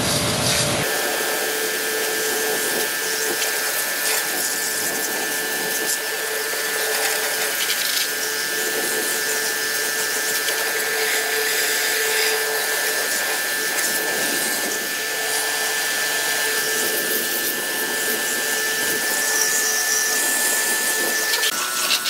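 A small motor-driven machine running steadily: a constant high whine and a fainter lower hum over a broad hiss, after a low rumble cuts off just under a second in.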